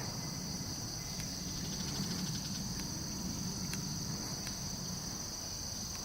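A steady, high-pitched insect chorus that does not let up, over a low background rumble, with a few faint clicks.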